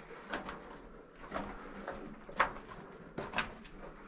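Footsteps scuffing and knocking on the rocky floor of a mine tunnel: a handful of uneven steps, the sharpest about halfway through.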